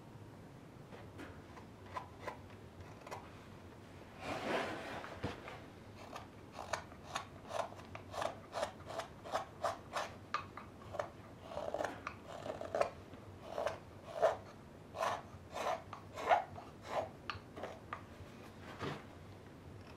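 Knife cutting into a raw birch kuksa: a steady run of short shaving strokes, about two a second, as the blade slices thin curls from the green wood. One longer scrape comes about four seconds in, before the run of strokes.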